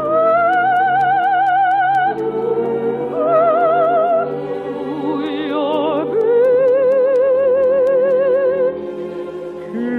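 Operetta singing with orchestral accompaniment: a high voice holds long notes with wide vibrato, moving from one sustained note to the next.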